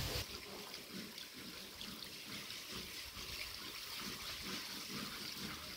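Water from a hose trickling and splashing over an elephant's trunk as it is being scrubbed during a bath.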